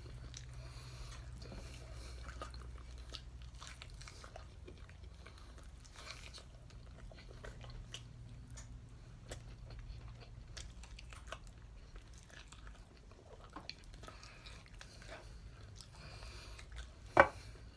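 Close-up chewing and biting on a sauced whole chicken wing, with scattered small wet clicks and some crunching, over a low steady hum. One sharp, loud knock near the end.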